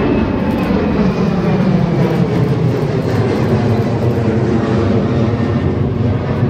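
Jet aircraft taking off, its engines at takeoff power making a loud steady rumble, with whining tones that fall in pitch as it passes.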